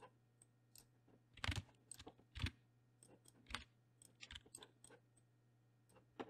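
Faint computer keyboard keystrokes and mouse clicks, a few scattered taps with the loudest about a second and a half and two and a half seconds in, then a quick cluster of small clicks a little past the middle.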